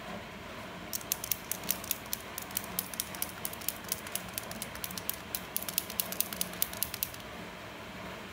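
A paint marker being shaken, its mixing ball rattling in rapid, irregular clicks for about six seconds, starting about a second in, over a steady background hiss.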